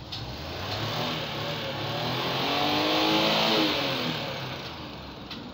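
A motor vehicle driving past, its engine note and loudness rising to a peak about three seconds in and then falling away.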